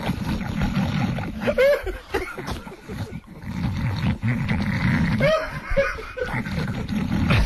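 A group of people laughing, with indistinct talk mixed in.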